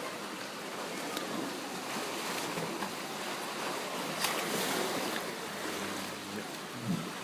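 Pool water sloshing and splashing as California sea lions play in it, with a sharp click about four seconds in and a short low thump near the end.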